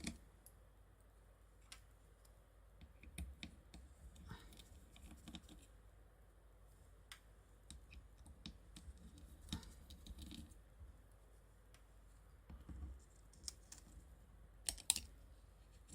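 Faint, scattered small clicks and taps of a precision screwdriver and tiny screws being handled while a smartphone is taken apart, with a short, louder cluster of clicks near the end.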